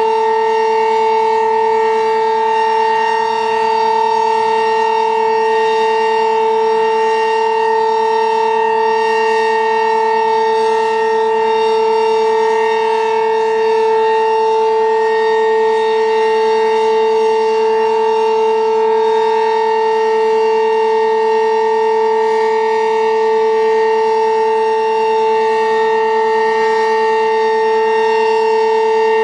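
Sentry 15V2T-B outdoor warning siren sounding a loud, steady alert tone at full pitch, held without rising or falling: the continuous signal of a storm-siren test.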